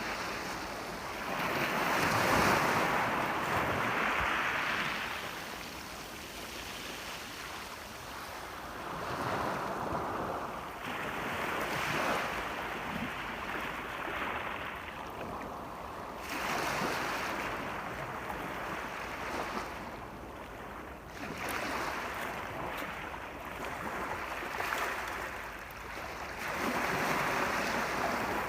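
Sea waves washing in, a steady hiss of surf that swells and fades every few seconds.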